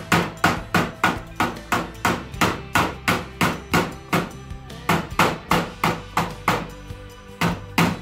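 Hammer blows on a chisel against a sheet-steel patch panel, ringing metallic strikes at about two or three a second with a brief pause near the end. The blows punch a line of marks along the panel so its edge can be rolled over.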